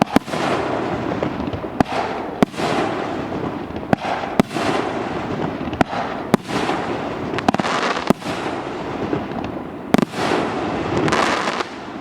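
A 2.5-inch, 25-shot firework battery (cake) firing in quick succession: sharp reports come every half second to second and a half, each followed by a hissing, crackling burst. The volley dies down near the end.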